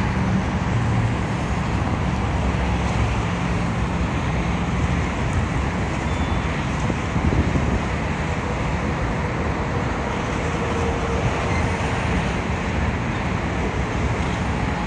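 Steady road traffic noise from passing vehicles, with a low engine hum in the first few seconds.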